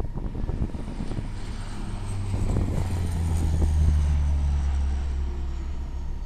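Canadair CL-415 water bomber's twin turboprop engines on a low, high-speed flypast: a steady propeller drone that swells to its loudest about four seconds in, with a faint high whine falling in pitch as it goes by.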